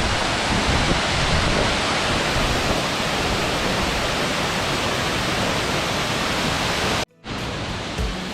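Monsoon-swollen waterfall rushing, a loud steady roar of falling water. About seven seconds in it cuts off abruptly for a moment, then a quieter rush of water resumes.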